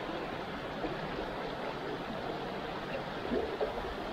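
A small stream's water running steadily, with a couple of brief louder moments about three and a half seconds in.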